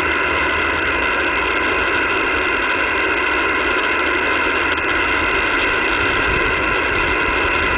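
Shortwave receiver static on the 20-metre band: a steady hiss of band noise with a few faint constant tones from heterodynes, heard on an open channel between transmissions.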